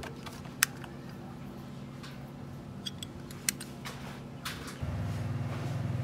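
Scattered sharp metallic clicks and taps of tools and bicycle parts being handled during brake cable work, over a low steady hum. Near the end a louder low drone comes in.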